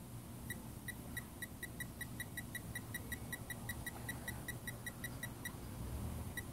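Snap-on Techangle electronic torque wrench beeping rapidly, about five short high beeps a second, as its setting buttons are pressed to step the value through its range; the run stops after about five seconds, followed by two more single beeps near the end.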